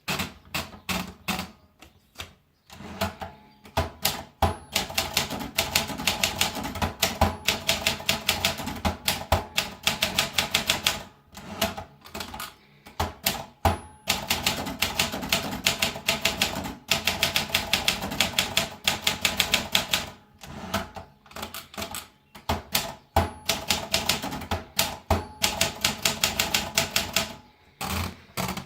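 Olympia Traveller portable manual typewriter being typed on: rapid runs of key strikes clacking against the platen, broken by short pauses, with a brief high ring three times.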